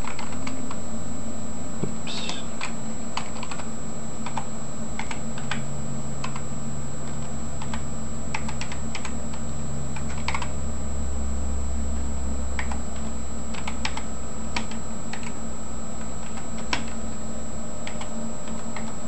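Typing on a computer keyboard: irregular key clicks in short runs with pauses, over a steady low hum.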